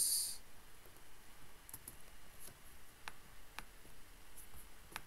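Faint, scattered clicks of a computer keyboard and mouse, about eight over a few seconds, with a brief hiss at the very start.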